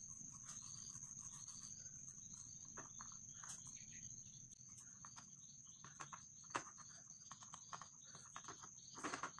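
Faint soft taps and rustles of hands rolling a potato-dough rope on a board and pinching it into a ring, with a louder rustle near the end. A steady high-pitched whine and low hum sit underneath.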